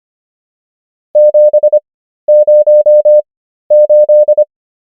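Morse code practice tone, one steady beep sending the digits 7, 0 and 8 as three separate groups at 25 words per minute character speed: dah-dah-dit-dit-dit, then five dahs, then dah-dah-dah-dit-dit, with long gaps between the characters.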